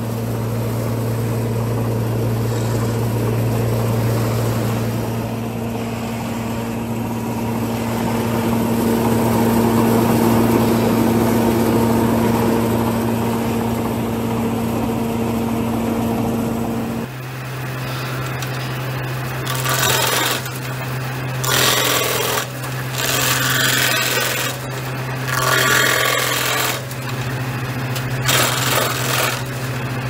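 A sawmill machine with a circular saw blade and spiked feed rollers running with a steady hum. About halfway through, the sound switches to a stake-pointing machine's spinning cutter head, which hums steadily and gives repeated loud rasping bursts as it cuts points onto wooden stakes.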